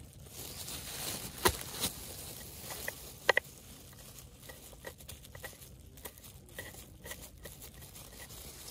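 Chef's knife chopping garlic cloves on a wooden cutting board: a few sharp knocks of the blade on the board in the first half, then lighter, quicker taps.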